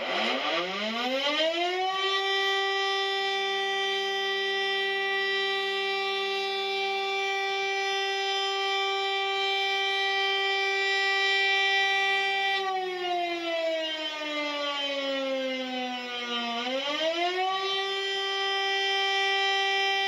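Ten-horn civil defense siren winding up to a steady wail over about two seconds, then holding it. About two-thirds of the way through, the pitch sinks for a few seconds, then winds back up to the same steady wail.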